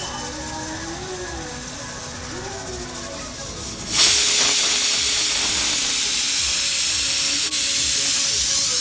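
Pressure cooker whistle going off about four seconds in: a sudden, loud, steady hiss of steam escaping as buffalo meat cooks under pressure.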